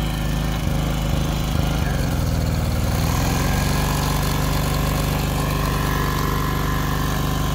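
Small Hero Honda petrol engine running steadily with the air compressor it serves, just after starting. Its note shifts over the first few seconds, then settles, and a thin whine joins in about three seconds in.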